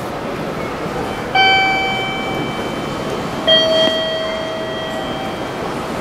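Two-note electronic platform chime: a higher note, then a lower one about two seconds later, each ringing for about a second over steady station noise.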